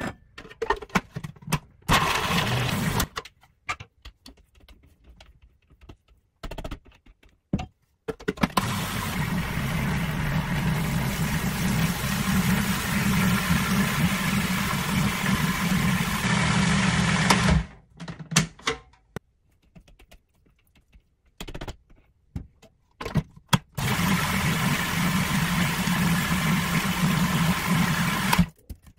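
Countertop food processor motor running as it minces peeled garlic cloves and blends them with oil poured in through the feed tube. It runs briefly about two seconds in, then for about nine seconds, then for about five seconds near the end, with short knocks and clicks between the runs.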